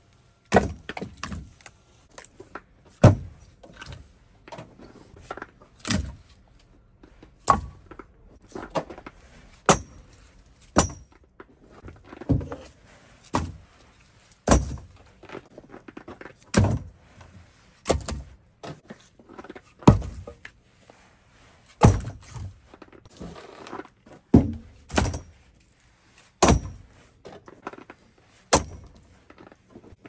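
Split firewood logs being stacked onto a wooden rack, each log landing with a sharp wooden knock against the pile about every one to two seconds, with lighter clatters of wood between.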